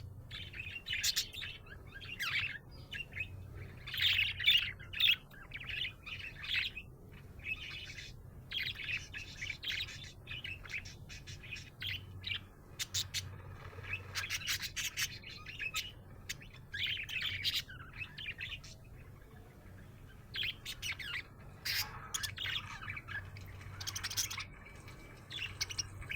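Budgerigar chirping and warbling in rapid bursts of short chirps, with brief pauses between phrases.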